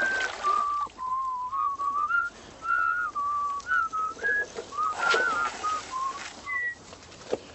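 A person whistling a wandering tune, one clear note after another, with a few short noisy bursts, the loudest about five seconds in.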